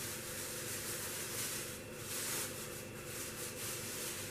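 Soft rustling and crinkling of newspaper and a plastic bag being handled as a newspaper-wrapped bundle of rose cuttings is opened by hand, with a few louder crinkles about two and three seconds in.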